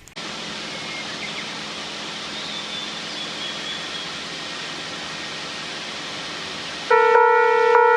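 Steady outdoor background hiss. About seven seconds in, a railway level crossing's electronic warning bell starts ringing loudly as a repeating bell-like tone.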